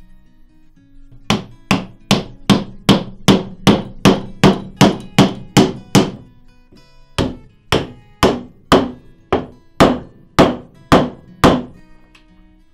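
A run of sharp, evenly spaced knocks, two to three a second, with a short break a little past halfway; guitar music plays faintly underneath.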